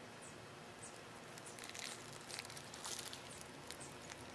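Faint crinkling and rustling of a white wrapper handled in gloved hands, with a cluster of short crackles about two to three seconds in.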